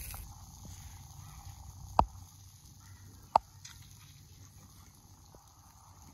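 Two short, sharp clicks about a second and a half apart, over a faint steady outdoor background.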